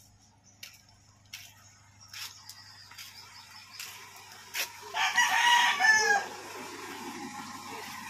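A rooster crowing once, about five seconds in: a single call of a little over a second that drops in pitch at the end.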